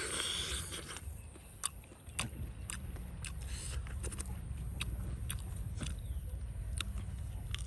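Someone biting and chewing roasted duck, with scattered sharp crisp clicks over a steady low background rumble.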